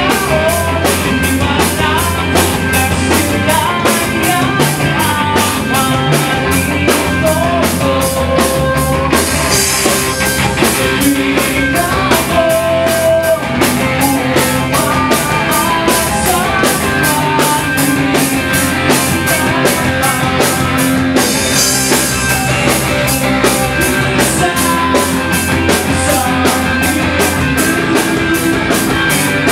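Live rock band playing: electric guitars and a drum kit keeping a steady beat, with a singer shouting into a microphone. The cymbals swell twice, about nine seconds in and again past twenty seconds.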